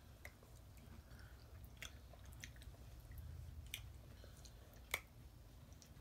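Faint mouth sounds of children chewing and biting cake, with scattered small clicks and one sharper click about five seconds in.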